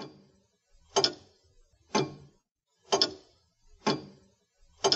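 A clock ticking: single sharp ticks, evenly spaced about once a second.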